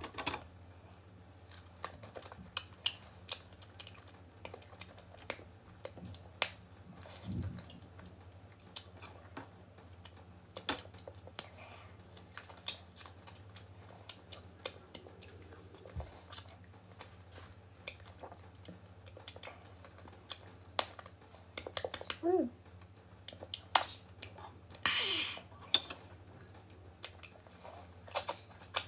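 Close-up eating sounds of raw green mango: irregular crisp bites, crunching and wet mouth clicks as the firm fruit is chewed and its skin peeled off by hand, over a steady low hum.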